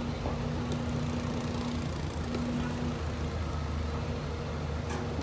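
Excavator's diesel engine running at a steady, unchanging hum, with a few faint clicks.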